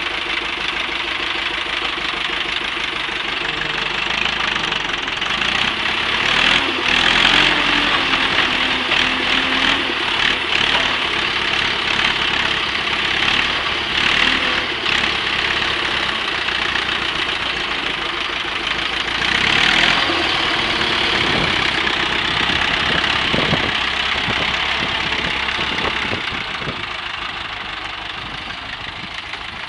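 Ursus C-360 tractor's diesel engine running with the front loader working, the engine speed rising and falling, with louder surges a few times as the grab digs into the silage.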